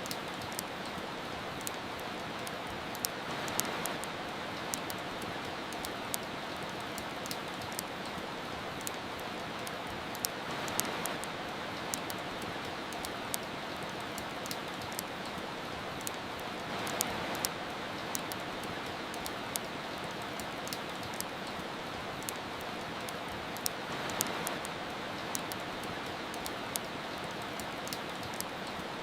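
Steady rain hiss mixed with the irregular sharp crackles and pops of a wood fire burning in a fireplace. The rain swells slightly about every seven seconds.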